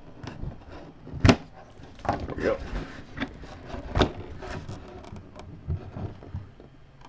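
Cardboard box being opened by hand: its seal is broken and the lid flaps pulled open with scraping and rustling. Two sharp knocks come about a second in and again about four seconds in.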